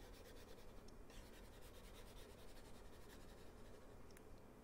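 Near silence: faint room hiss with a few soft taps and scratches of a stylus on a tablet.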